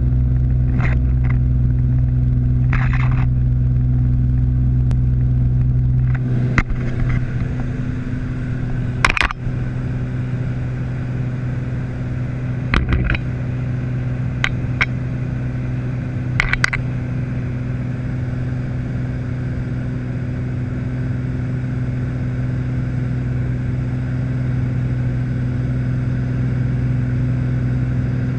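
Beechcraft Bonanza F33A's six-cylinder piston engine and propeller droning steadily inside the cockpit on final approach; the deepest part of the drone drops away about six seconds in. A few short clicks and rattles sound over it during the first half.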